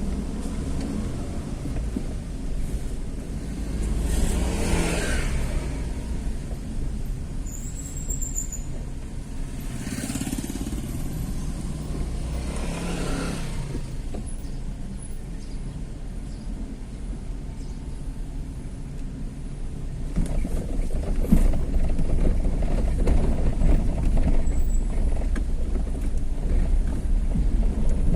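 Road vehicle running along the road: a steady low engine and road rumble, with three brief louder swells, and the rumble growing louder about two-thirds of the way through.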